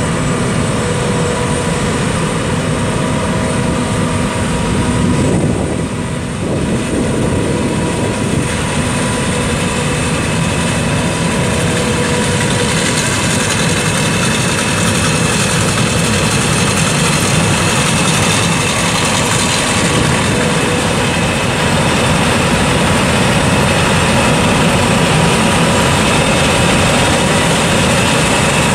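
John Deere S660 STS combine's diesel engine running steadily: a dense, loud drone with a faint steady whine above it.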